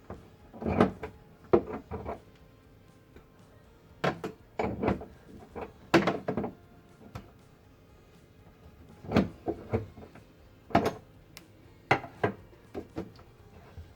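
Irregular knocks and clanks of a wrench working on a water heater's flexible supply-hose fittings as the hose is loosened and pulled off, in scattered clusters of a few strokes each.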